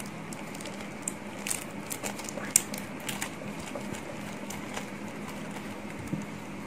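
Thin clear plastic bag crinkling and rustling in a run of short crackles as a small diecast model tail part is drawn out of it, over a steady low hum.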